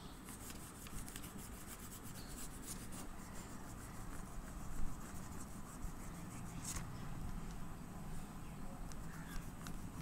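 Oil pastel scratching across paper in rapid back-and-forth colouring strokes, with one sharper tap about halfway through.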